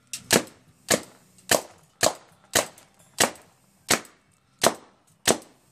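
Tippmann Alpha Black paintball marker firing a steady string of about ten sharp shots, roughly one every half-second or so.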